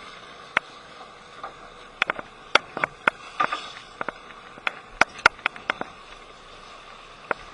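A series of sharp, irregular clicks and knocks, some in quick runs of three or four, over a steady low background.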